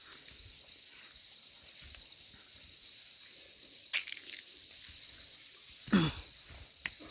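Steady, high insect chorus in an evening forest. Short sudden knocks break in about four and six seconds in, the second one the loudest.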